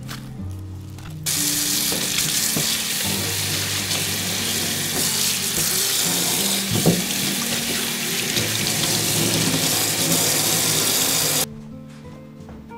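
Tap water pouring steadily into a stainless steel sink as a sponge is rinsed under the stream. It starts suddenly about a second in and cuts off near the end.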